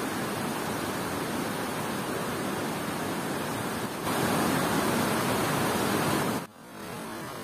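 Steady rushing of floodwater pouring over a dam spillway and churning below it. It gets louder about four seconds in, then drops abruptly near the end.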